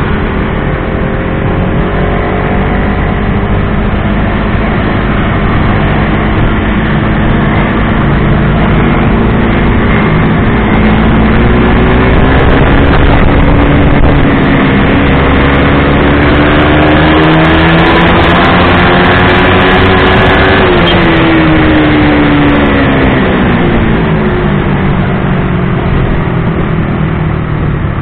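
Motorcycle engine under way, steady at first, then climbing in pitch for about ten seconds as it accelerates before dropping away when the throttle is closed. Heavy wind rush on the microphone runs throughout.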